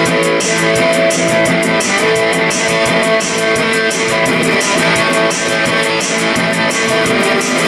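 Electric guitar strummed in a fast, steady rhythm, chords ringing on.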